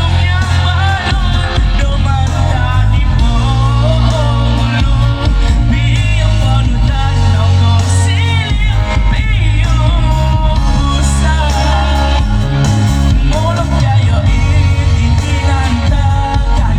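A voice singing over loud backing music with a steady, heavy bass line; the sung notes waver with vibrato throughout.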